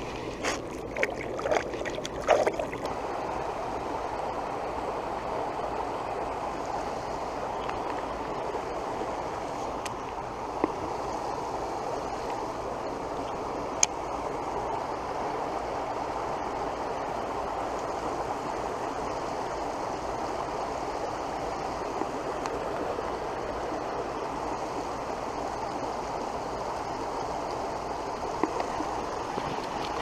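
Steady rush of water from a small waterfall spilling into a pond, with a few sharp clicks in the first few seconds.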